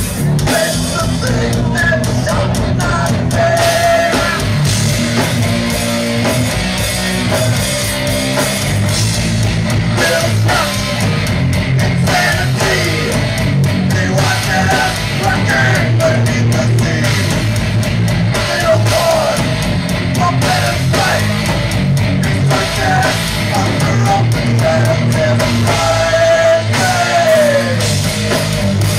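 Heavy rock band playing live: electric guitars and drums with a singer's voice over them.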